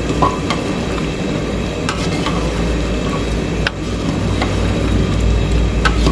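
A long metal ladle stirring thick, bubbling chicken curry in a large aluminium pot, clinking against the pot several times, over the steady low rumble of a gas burner on high flame.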